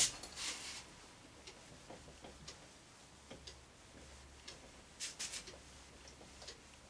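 Cloth duster wiping a whiteboard: faint swishing strokes and small ticks, the loudest right at the start and again about five seconds in.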